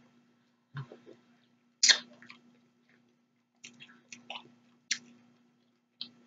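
Close-miked chewing of a mouthful of bacon covered in grits, heard as a few separate wet chews and smacks, the loudest about two seconds in.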